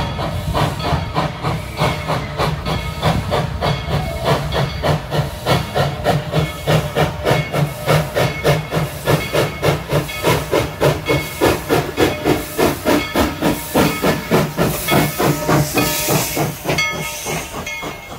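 Narrow-gauge steam locomotive Engine 190 chuffing under way, its exhaust beats coming evenly and gradually quickening, with steam hissing. It fades somewhat near the end.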